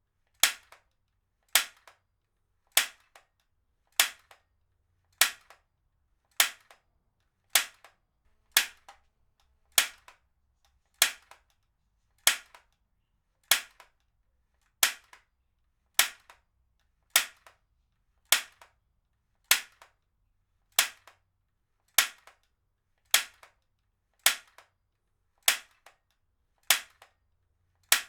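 Heavy-duty stapler firing staples in a steady rhythm, about one sharp snap every 1.2 seconds. Each snap is followed by a much fainter click.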